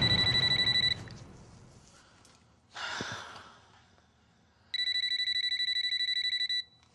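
Mobile phone ringing with a trilling electronic ring: one ring ends about a second in and a second ring sounds for about two seconds near the end. A short rush of noise comes between the rings.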